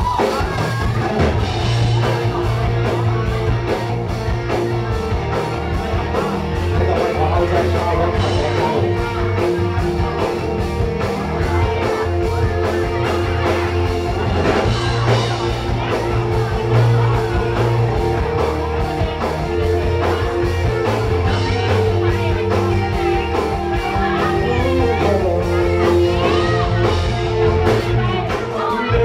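Live band music: a rock song with a sung lead vocal over a steady drum beat and bass.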